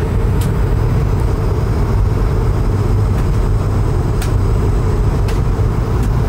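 Airliner cabin noise: a steady low rumble of jet engines and airflow heard from inside the cabin, with a few faint clicks.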